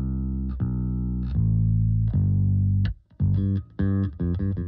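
Soloed electric bass guitar line from a recorded song, processed through the Waves Scheps Parallel Particles plug-in. It plays long held notes for about three seconds, then switches to short, choppy notes with gaps between them.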